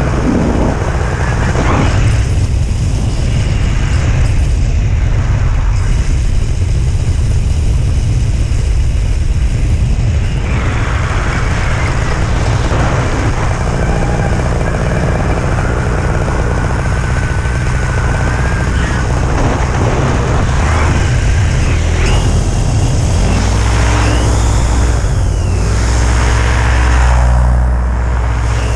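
Paramotor's Eos 150 two-stroke engine running steadily in flight, with wind rushing over the microphone; the engine is losing power and held to about 6000 rpm.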